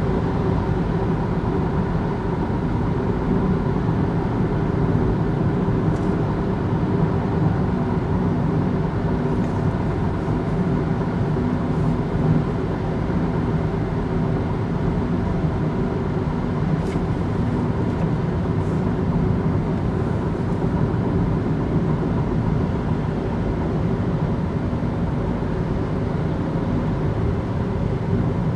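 Steady road, tyre and engine noise inside a car cruising at motorway speed, with a few faint ticks.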